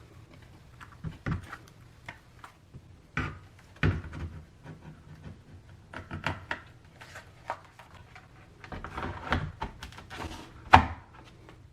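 Handling noises as the doorbell monitor and its wiring are worked with: scattered clicks, taps and rubbing, with a sharper knock near the end.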